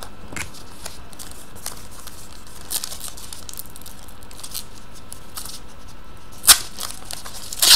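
Foil wrapper of a hockey trading-card pack being handled and torn open by hand: scattered light crinkles, with one sharper crackle about six and a half seconds in.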